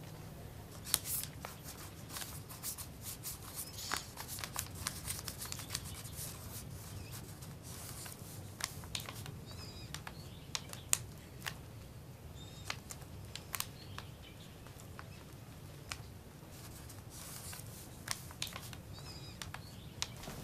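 Crayon scratching on paper in irregular, scratchy strokes, with sheets of paper rustling, over a steady low hum.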